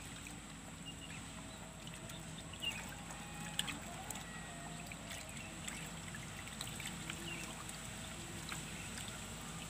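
Faint trickling water, with a thin steady high tone and a couple of small soft knocks a few seconds in.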